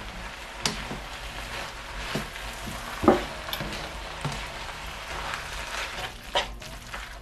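Noodles, vegetables and black bean sauce sizzling in a wok as they are stir-fried, with a spatula scraping and knocking against the pan about five times, loudest about three seconds in.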